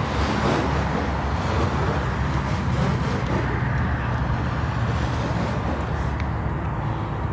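Steady low engine rumble, with a rushing noise over it during the first few seconds.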